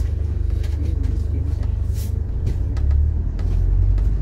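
Double-decker bus engine and body rumbling from the upper deck as the bus drives along, growing louder about three seconds in.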